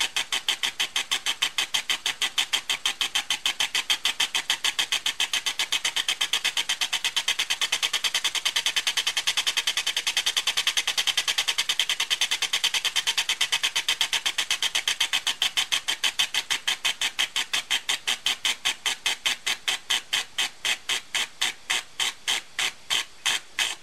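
Small home-built poppet-valve engine running on compressed air with a four-lobe cam, so it gives one exhaust puff every stroke. The puffs come in a rapid, even train of several a second, slow down over the last few seconds and stop suddenly as the air is shut off.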